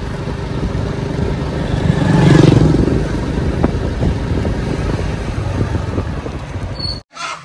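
Motorcycle engine running steadily while riding along a road, with a louder swell about two seconds in and an abrupt stop near the end.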